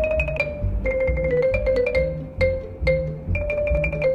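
Cartoon score music: a quick run of short xylophone-like mallet notes over a steady bass beat.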